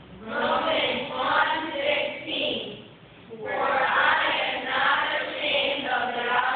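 Children's choir singing together in a church, starting a phrase just after the start, pausing briefly about three seconds in, then singing on.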